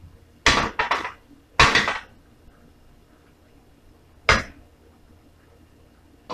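A black plastic spoon stirring and scraping against a stainless steel frying pan of thick corned-beef mixture: several clattering strokes in the first two seconds, then a single sharp knock about four seconds in.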